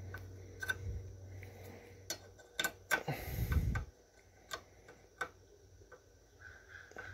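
Case Ingersoll tractor's steel travel-control lever rod clicking and knocking in the worn pivot hole of its metal bracket as it is rocked back and forth, with a scraping rustle about three seconds in. The irregular clicks are the slop from the worn hole, play that makes the tractor's forward and reverse travel jumpy.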